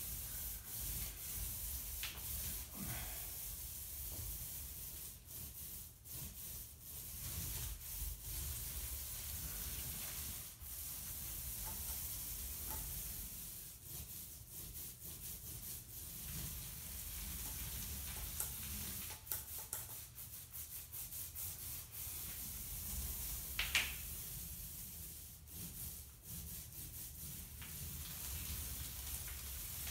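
Thick-nap paint roller loaded with wet paint being rolled back and forth over a wall: a sticky, crackling hiss that rises and falls with the strokes. One short, sharper sound about three quarters of the way through.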